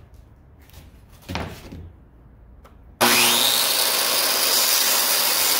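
Corded circular saw switched on about three seconds in: the motor spins up with a short rising whine, then runs loud and steady at full speed at the edge of a plywood sheet. Before it, a soft thump about a second in.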